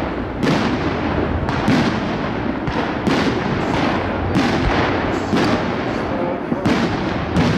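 Fireworks display: aerial shells bursting overhead in a string of loud bangs, about one a second.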